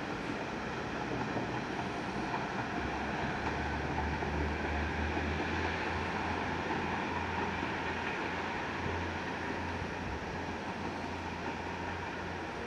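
KiHa 40 and KiHa 48 diesel railcars pulling away from a station under power: a steady low engine drone that strengthens about three seconds in, over the rumble of the moving train.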